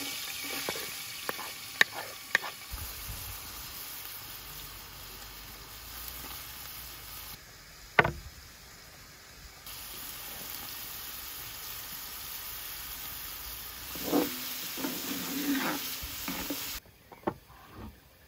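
Chopped onion sizzling as it fries in hot fat in a large aluminium pan. A wooden spoon scrapes and knocks the onion off a wooden bowl in the first couple of seconds. There is one sharp knock about eight seconds in and a cluster of knocks a little before the sizzling cuts out near the end.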